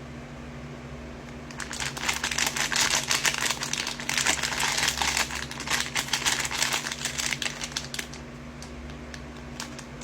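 Packaging being handled and crinkled in a run of dense crackling that starts about a second and a half in and stops about eight seconds in, while a squishy toy is unboxed.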